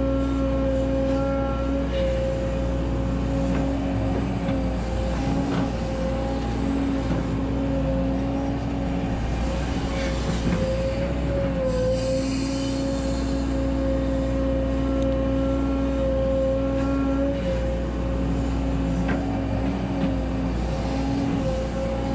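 Volvo EC140DL hydraulic excavator working while it digs a trench, heard from the operator's cab: the diesel engine and hydraulic pump run with a steady whine whose pitch dips briefly under load, with a few light knocks from the bucket and boom.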